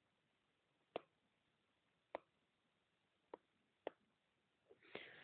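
Faint, sparse clicks of a stylus tip tapping a tablet screen during handwriting: about five single ticks, irregularly spaced around a second apart, with near silence between them.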